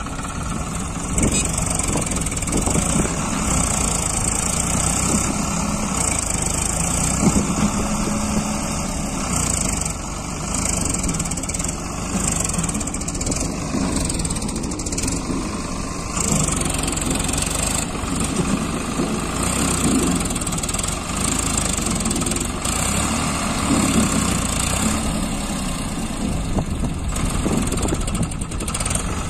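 Farmtrac 60 tractor's diesel engine running under heavy load, its level rising and falling, as it pulls a trolley heaped with sand through soft, loose sand.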